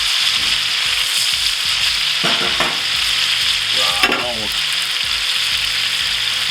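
Onions sautéing on a hot cast iron pan, a steady loud sizzle.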